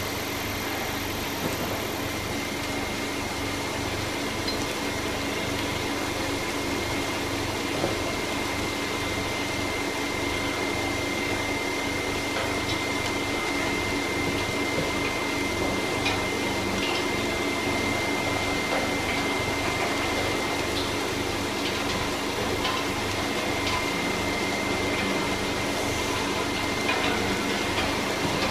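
Packaging line running: plastic modular conveyor belts carrying pouches, heard as steady machine noise with a constant high whine and a few faint scattered ticks.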